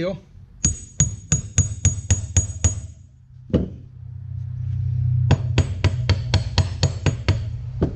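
Hammer tapping a seal into the cast housing of a John Deere 6600 combine's unloading-auger gearbox: two runs of quick, ringing metal taps, about four a second, with a single knock in the pause between them.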